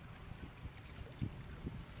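Wind rumbling on the microphone, with a few soft irregular thumps, the strongest just past the middle, and a faint steady high whine.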